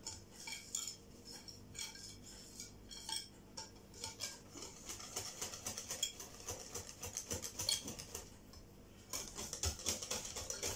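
A utensil clicking and scraping against a glass bowl as crêpe batter is stirred by hand: a steady run of light clinks that thins out briefly about eight seconds in and picks up again after.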